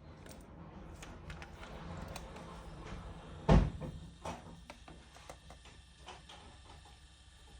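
Small clicks and knocks of plastic stand-fan parts being handled, with one loud sharp knock about three and a half seconds in.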